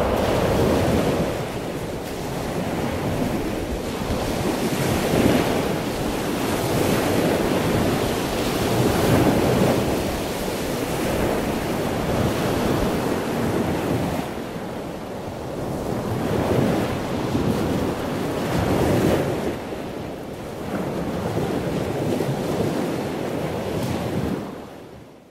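Ocean surf breaking and rushing, swelling and fading every few seconds, with wind buffeting the microphone. The sound drops away suddenly at the very end.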